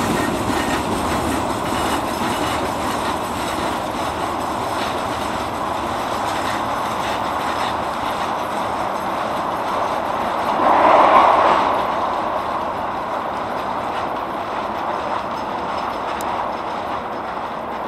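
Freight train of covered hopper cars and tank cars rolling past, steel wheels clattering over the rail joints, slowly fading as the train draws away. About ten seconds in, a brief louder burst of noise rises over the rumble.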